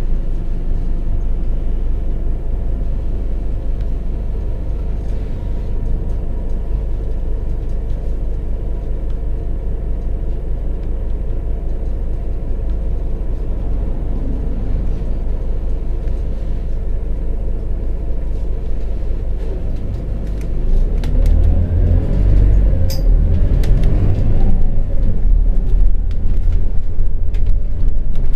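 Diesel engine of a Scania OmniLink articulated bus heard from inside the cabin, rumbling steadily at idle while the bus waits. About twenty seconds in, the rumble grows louder and deeper as the bus pulls away.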